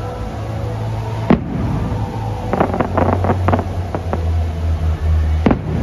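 Aerial fireworks shells bursting: a sharp boom about a second in, a quick string of crackling pops in the middle, and another boom near the end, over a steady low rumble.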